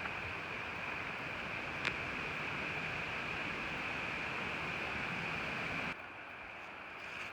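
Steady forest ambience: an even high-pitched drone over a hiss, with a single sharp click about two seconds in. The sound drops abruptly in level about six seconds in, while the high drone carries on.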